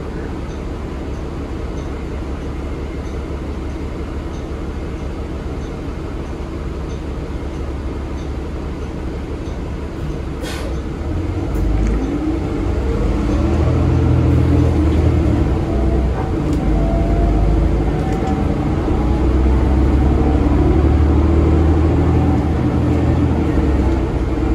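Cummins L9 diesel engine of a 2022 Nova Bus LFS heard from inside the bus, running steadily, with a single sharp click about ten seconds in. From about twelve seconds the engine grows louder, its pitch rising as the bus accelerates.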